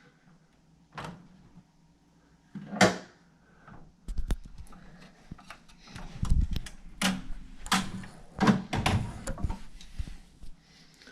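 Scattered sharp clicks and knocks at a 1987 Williams Big Guns pinball machine, one loud one about three seconds in, then a busy run of clicks with a few low thumps from about four seconds in.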